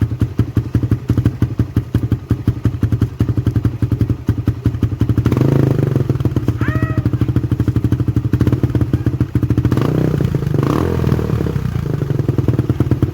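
Suzuki Raider 150's single-cylinder four-stroke engine running on the stock exhaust elbow into a gutted ('kalkal') canister, a fast even popping exhaust beat. It gets louder, revved up, about five seconds in and again around ten seconds in.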